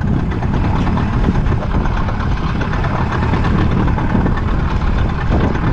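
Boat engine running steadily, a low, even rumble.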